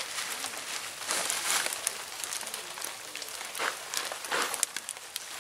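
Nylon tent fabric rustling as it is handled and lifted while the tent is being pitched, in several short crinkly bursts.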